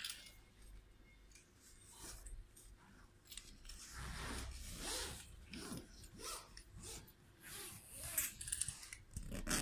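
Stretch fabric graphic rustling and rubbing as it is pulled taut and smoothed by hand over the aluminium tube frame of a tension fabric display, in short, irregular scrapes.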